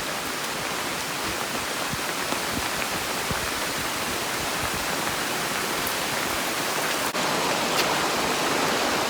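Steady rushing of water, heavy rain or falling water, with a momentary break about seven seconds in and slightly louder after it.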